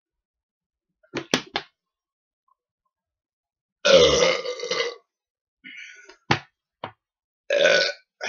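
A man belching loudly from a stomach full of Dr Pepper soda gas: one long belch about four seconds in and a shorter one near the end. A few short clicks and knocks come before and between them.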